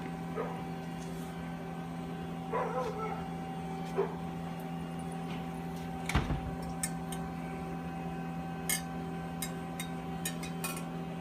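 Scattered knocks and clicks from handling the glass evaporator body during assembly, the loudest a knock about six seconds in, with a brief squeak near the third second. A steady electrical hum runs underneath.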